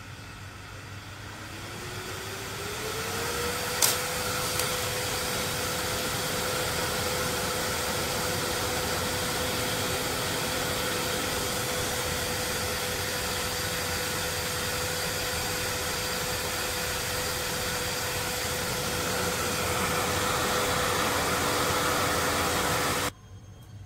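Small DC electric fan spinning up and running: a whirring hum whose pitch rises over about two seconds and then holds steady, with a sharp click about four seconds in. The sound cuts off suddenly near the end.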